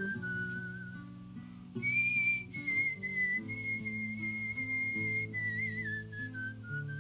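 A man whistling a melody over his own strummed acoustic guitar chords. The whistle falls silent briefly, comes back higher about two seconds in with a fresh strum, holds long notes, then slides lower near the end.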